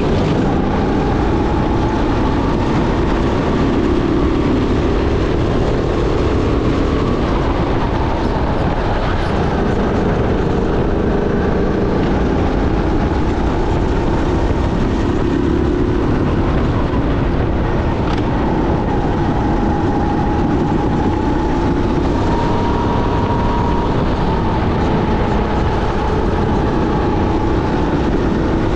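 Sodi SR5 rental go-kart engine running flat out under racing load, heard from the driver's seat. Its pitch wavers up and down as the throttle is worked through the corners, over a steady rumble of wind and tyre noise.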